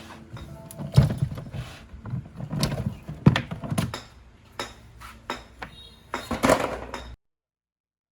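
Irregular metallic clanks, knocks and rattles of metal parts being handled and pried loose while an old refrigerator is taken apart for scrap. The sound cuts off abruptly into silence about seven seconds in.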